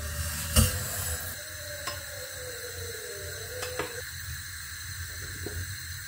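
Granulated sugar poured into an empty stainless steel pot: a steady hissing patter of grains on the metal that stops about two-thirds of the way through, followed by a few light clicks.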